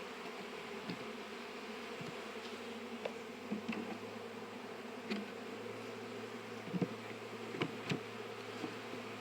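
A mass of honeybees buzzing steadily around an opened hive as they are shaken from the frames into a box, with a few light knocks, the loudest a pair about three-quarters of the way through.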